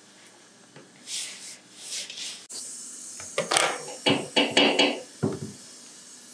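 Hands working flatbread dough: soft scraping swishes in a plastic bowl, then a quick irregular run of short, loud hits as pieces of dough are torn off and pressed down on a stone countertop.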